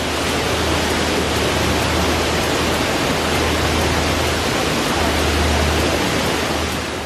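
Waterfall rushing: a steady, loud noise of falling water with a low rumble beneath, which stops near the end.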